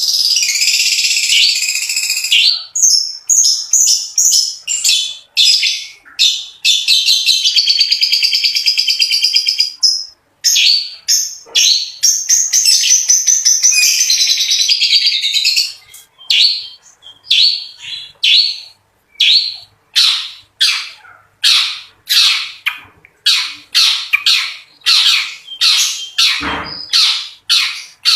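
Long-tailed shrike singing: long, rapid trilling runs of high notes, then from about halfway a string of short harsh calls, roughly two a second. A brief low thump near the end.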